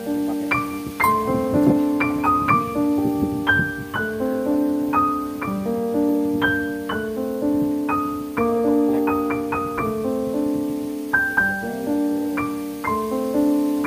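Background instrumental piano music: a gentle melody of struck notes that ring on and overlap.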